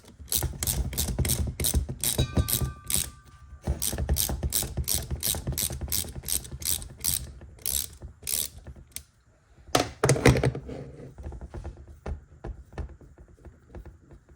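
Ratchet wrench clicking in an even run, about three clicks a second, while backing a head stud out of a two-stroke cylinder. The clicking stops about nine seconds in, followed by a louder clatter and a few fainter clicks.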